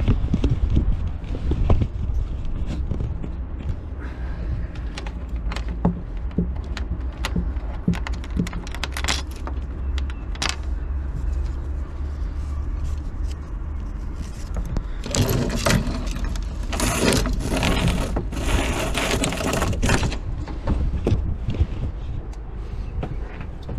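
Rope and stainless fittings on a sailboat's traveller being handled as a traveller line is changed: scattered light clinks and knocks of shackles and blocks, then a few seconds of loud scraping as line is rubbed and pulled through the fittings about two-thirds of the way in. A steady low rumble runs underneath.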